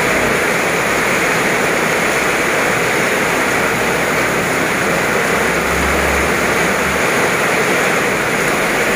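Heavy rain pouring down in a steady, loud, even hiss.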